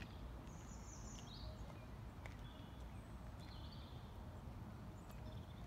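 Birds calling in the trees, several short chirps, over faint boot steps of a small squad marching on tarmac and a low steady rumble.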